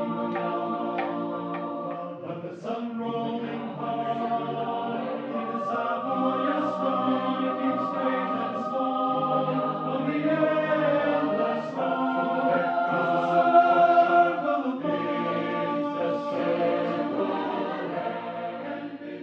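Choir singing sustained chords in several parts, the phrases breaking off briefly and re-entering every few seconds, swelling loudest a little before the two-thirds mark.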